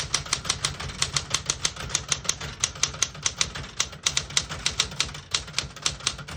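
Keys of a 1967 Smith-Corona Super Sterling manual portable typewriter striking the platen in a quick, even run of clacks, about five or six a second, as a sentence is typed.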